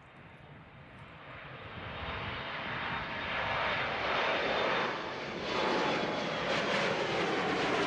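Jet airliner's engines, growing steadily louder over the first few seconds as the aircraft approaches, then holding loud, with a faint high whine.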